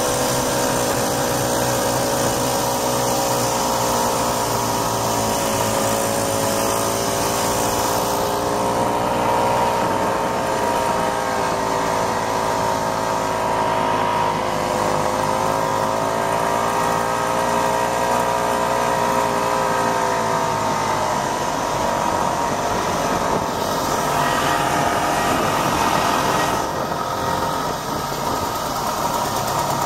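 1967 Ski-Doo Olympique's single-cylinder two-stroke engine running under way on the trail. Its pitch sags and recovers around the middle, and the note changes about two-thirds of the way through, with a brief dip in loudness near the end.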